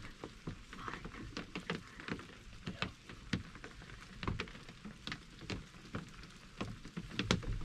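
Raindrops tapping irregularly on a wooden hunting blind, a few light ticks a second over a soft hiss of rain.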